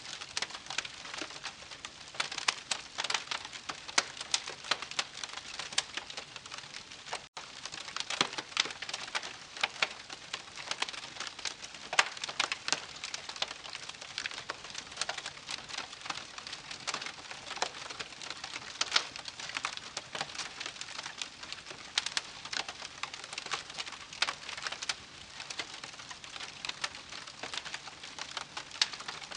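Wood campfire crackling, with frequent irregular sharp pops and snaps over a soft hiss. The sound cuts out for an instant about seven seconds in.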